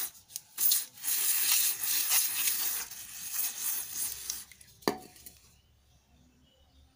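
Aerosol spray cleaner hissing in bursts through its straw onto fuel pump parts, stopping about four and a half seconds in; then a single metallic knock against the metal tray.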